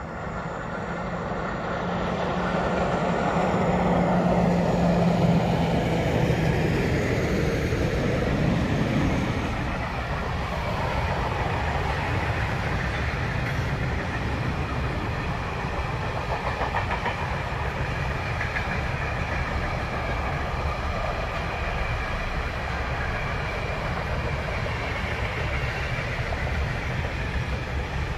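A container freight train passes, headed by an electric locomotive whose steady hum is loudest, falling in pitch, during the first third. After that the long rake of loaded container wagons rolls by with a steady rumble of wheels on rail.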